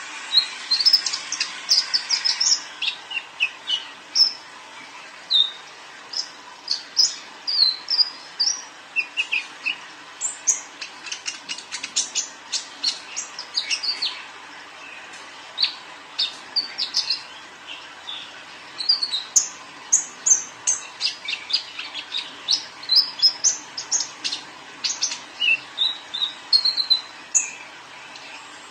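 Young male olive-backed sunbird singing: sharp, high chirps and quick little trills in lively bursts, with a pause of a few seconds just past the halfway point.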